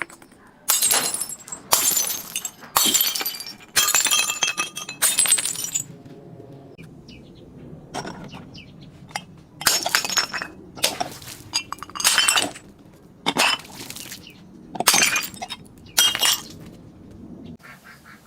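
Glass bottles shattering again and again, about a dozen sharp crashes with tinkling shards, in two runs with a short lull between them.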